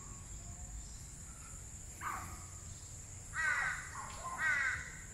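A crow cawing: three harsh calls, the last two louder and about a second apart.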